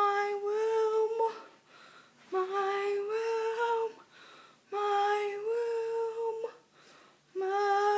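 A girl singing four long held notes, each about a second and a half with short breaths between, the pitch nearly level.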